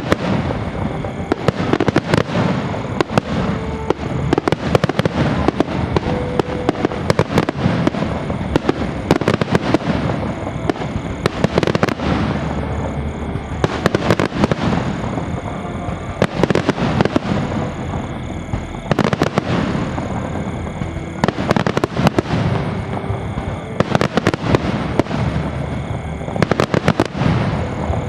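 Fireworks display: a dense, irregular barrage of bangs and crackling explosions going on without a break, with faint music under it.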